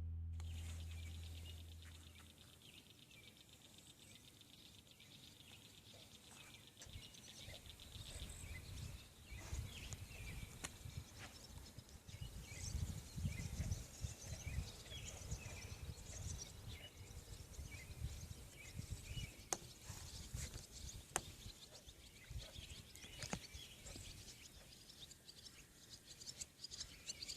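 Outdoor ambience with small birds chirping and twittering here and there, over a low, uneven rumble that starts about seven seconds in.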